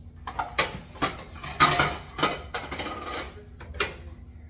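A utensil clinking and scraping against a bowl while stirring a dry mix of cornstarch and flour: a run of irregular clatters, the loudest a little under two seconds in.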